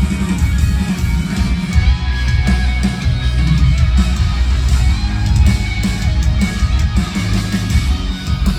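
Rock band playing an instrumental passage live, loud distorted electric guitars over bass and drums, with no singing.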